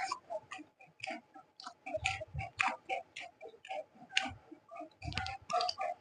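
Close-miked eating sounds of rice and egg curry: rapid, irregular wet lip smacks and chewing clicks, several a second, with a couple of low thumps.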